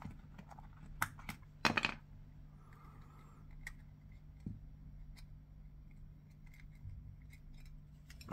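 Scattered small clicks and taps of a small wireless body pack transmitter and its parts being handled and taken apart, a short run of clicks about two seconds in, over a faint steady low hum.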